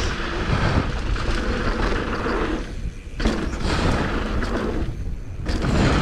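Wind rushing over the camera and knobby mountain bike tyres rolling fast over dry, rocky dirt, a steady noisy rumble. It drops away briefly twice, around three and five seconds in.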